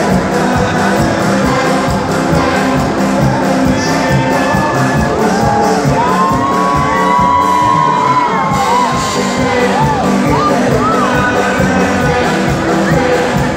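Live band music playing loud over a concert PA. The crowd is shouting and whooping over it, most clearly in the middle.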